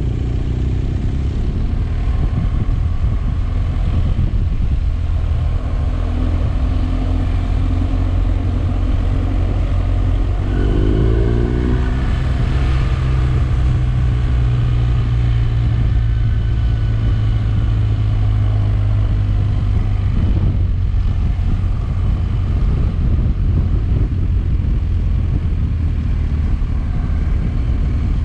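Motorcycle engine running steadily under way, with a rise in pitch about ten seconds in and a brief break in the engine note about twenty seconds in.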